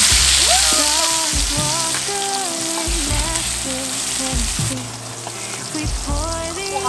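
Beef steak searing on a hot round iron griddle plate, a steady fat sizzle that is loudest at first and eases off about two-thirds of the way in.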